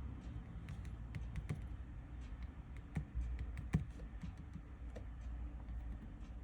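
Irregular light taps and clicks from handling a phone and small repair tools on a workbench, with a sharper knock nearly four seconds in, over a low steady hum.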